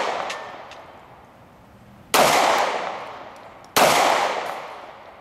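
Glock 43 9mm pistol fired twice, the shots about a second and a half apart, each ringing out and fading over about a second. The tail of a previous shot fades away at the start.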